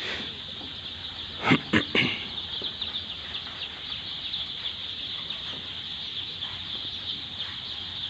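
Steady massed peeping of a large flock of four-day-old chicks in a brooding house, with two short knocks about a second and a half in.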